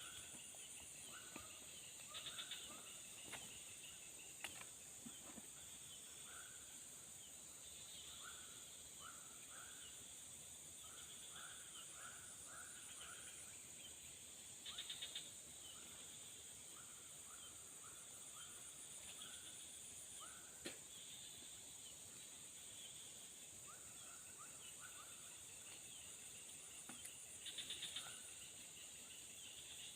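Faint outdoor ambience: a steady high-pitched insect drone, with many short, repeated chirping animal calls. Three brief rattling trills come near the start, midway and near the end.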